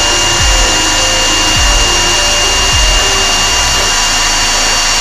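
Handheld power drill running continuously with a steady high whine as it works into the van's plywood wall lining. A slow bass beat from background music sits underneath.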